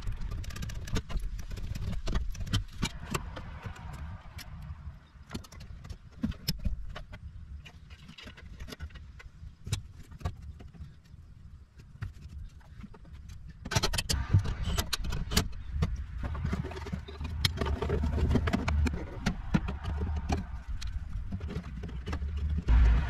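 Irregular clicks and metallic clinks of hand tools and hardware on a hybrid battery pack, over a low rumble. The clatter gets louder and busier about two-thirds of the way in.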